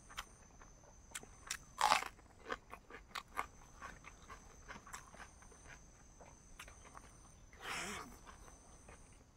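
A person eating chicken and rice: wet chewing, crunching and mouth smacks in irregular clicks, with a loud crunch about two seconds in and a longer rustling burst near the end.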